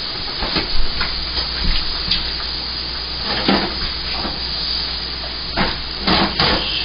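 A serving spoon scraping and clinking against a pan and plates as mushrooms and onions are scooped out, in a few short scrapes and knocks that bunch together near the end. Under them runs a steady hiss of food sizzling.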